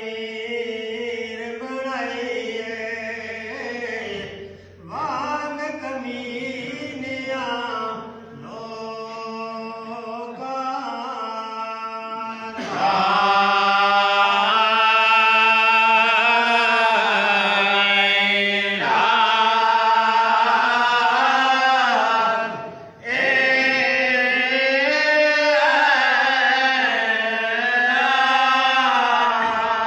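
Group of men's voices chanting a Sufi zikr together in long, drawn-out melodic phrases, with short breaks between phrases. The chanting grows louder about twelve seconds in.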